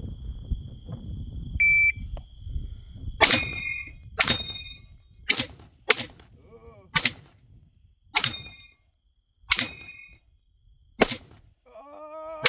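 An electronic shot timer beeps once about two seconds in. Then a Q Sugar Weasel AR-15 in 5.56 fires eight shots, roughly one a second, over the next eight seconds. Several shots are followed by a brief ring of steel targets being hit.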